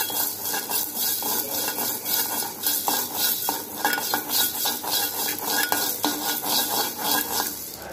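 Steel spoon stirring and scraping whole spices (black pepper, fenugreek, cumin, coriander seed) as they dry-roast in a kadai without oil, the seeds rattling against the pan in steady repeated strokes.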